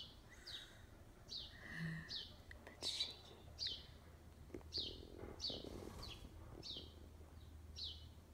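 A bird chirping faintly and steadily: a short falling chirp repeated about twice a second.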